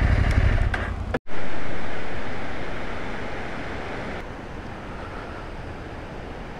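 Husqvarna Norden 901's parallel-twin engine running under wind noise for about a second, then a sudden cut to the steady rush of river rapids and a waterfall, loud at first and fading down.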